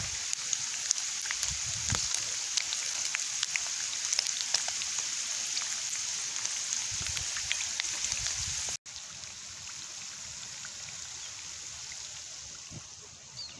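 Chicken wings deep-frying in hot oil in a cast iron skillet: a steady sizzle with many small crackling pops. The sizzle cuts out for an instant about nine seconds in and comes back quieter.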